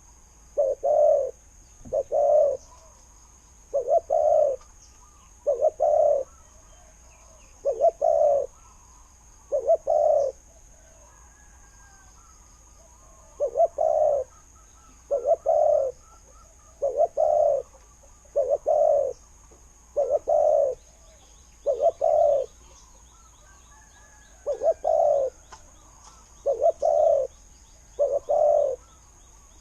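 Spotted dove cooing over and over in short groups of two or three low coos, about every two seconds, with a longer pause about a third of the way in. A steady high-pitched whine runs underneath.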